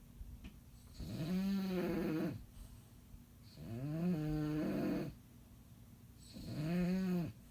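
A sleeping bulldog snoring: three long snores about two and a half seconds apart, each rising and then falling in pitch.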